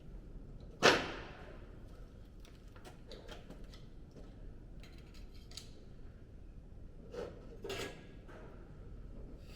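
Metal parts of a bench-mounted shrinker-stretcher being handled as its shrinking dies are swapped for stretching dies: one sharp metallic clank about a second in, then small clicks and two lighter knocks near the end.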